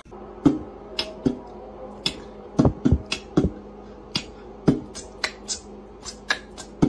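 A cat's claws clicking on a hard tiled floor as it walks, sharp irregular ticks a few times a second, over a steady low hum.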